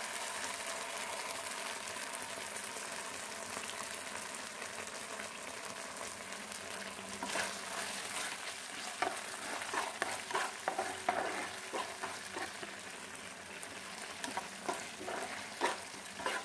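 Hot oil sizzling in a frying pan with garlic, cumin and green chillies as tomato sauce goes in. From about seven seconds in, a spatula scrapes and clicks against the pan as the sauce is stirred.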